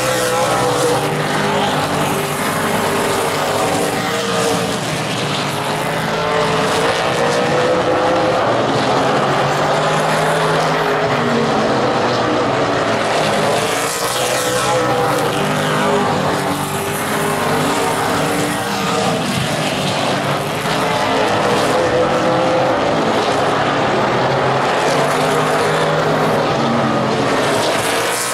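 Super late model stock cars racing, their V8 engines running hard, with several engine notes overlapping and the sound swelling and fading every few seconds as the cars pass.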